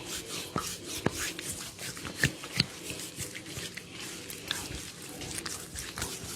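Hands working on a person's neck and skin in a neck-cracking massage, with scattered soft clicks and a few sharper cracks, the loudest about two seconds in and again half a second later.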